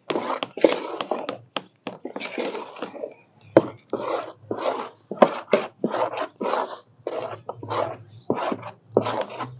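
People talking in short bursts, with a few sharp clicks or knocks among the words.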